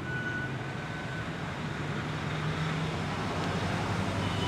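Steady background road traffic noise, a low hum and rumble, with a thin high tone lasting about the first second.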